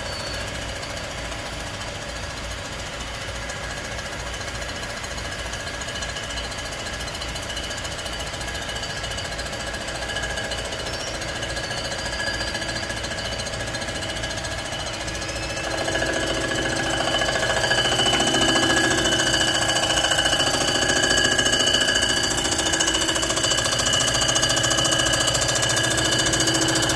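Comec ACF200 surfacing machine running, its rotary cutter feeding across a cast-iron IHC C60 cylinder head to skim the gasket face. It makes a steady mechanical running sound with a few held tones, and it grows louder and fuller a little past halfway as the cutter moves further onto the head.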